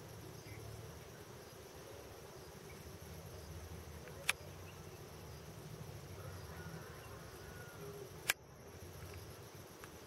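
Faint, steady insect chirring in the background, with two sharp clicks about four seconds apart.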